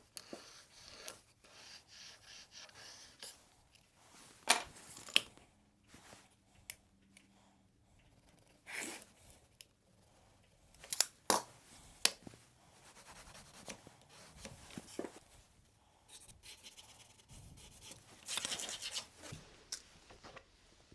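Handling noises: rustling and scraping, broken by several sharp knocks, a pair about four and a half seconds in and another pair about eleven to twelve seconds in.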